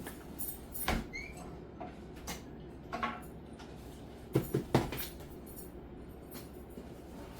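Scattered light clicks and knocks of seasoning containers and utensils being handled on a kitchen counter, with a brief squeak about a second in and three quick knocks about four and a half seconds in.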